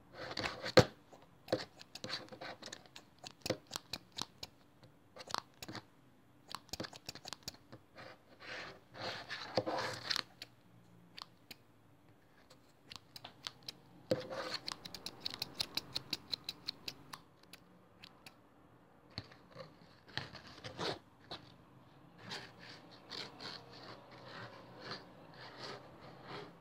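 Scissors snipping in quick runs of sharp clicks with pauses between, mixed with scratching.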